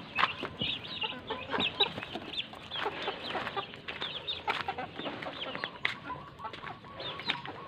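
Chickens calling: many short, high peeps from newly hatched chicks mixed with hen clucks, with a few light footsteps on gravel.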